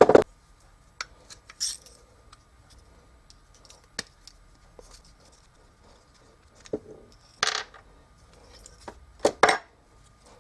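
Small hard parts and tools clinking and knocking during hand work on a coffee-machine water pump and its adapter fitting: scattered short clicks and clatters with quiet gaps, the loudest right at the start and twice near the end.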